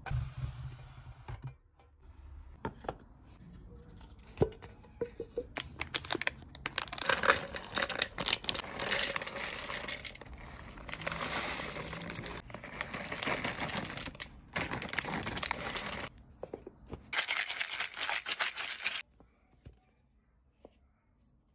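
A few light knocks and clicks of cans and bottles being set into a plastic tray. Then a foil snack bag crinkles and rustles loudly for about twelve seconds as nuts are poured from it into a canister. The rustling stops about three seconds before the end.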